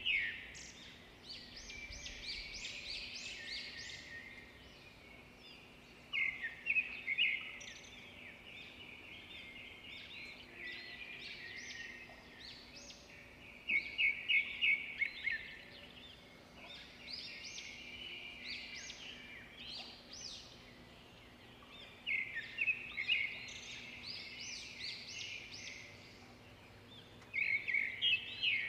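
Songbirds singing: a loud phrase of rapid, bright notes repeats about every seven seconds, with softer chirping between the phrases.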